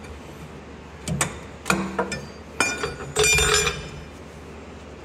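Steel wrenches clinking against each other and against steel: a few sharp clinks, then a brighter clang that rings for about half a second near the end.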